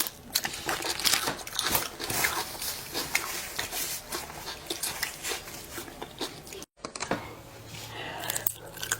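Close-miked eating: a rapid run of crunchy bites and chewing clicks. It breaks off with a sudden cut about two-thirds of the way through, then gives way to softer rustling over a low hum.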